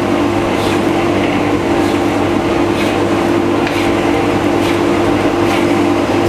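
A knife blade cutting through pastry dough and tapping the worktop, faint ticks about once a second, over a loud steady hum.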